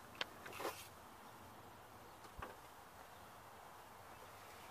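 A couple of sharp metal clicks and a short scrape as a 19 mm socket on an extension bar is fitted onto the serpentine belt tensioner, with one more click a couple of seconds in. After that only a faint steady hiss remains.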